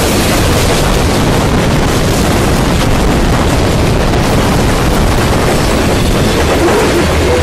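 Covered hopper cars of a long freight train rolling past close by: a loud, steady rumble and rattle of steel wheels on the rails.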